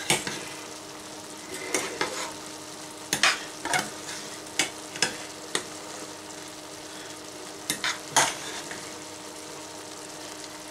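Wooden spoon stirring rice frying in a stainless saucepan: irregular clicks and scrapes of the spoon against the pan, about ten of them, over a steady sizzle.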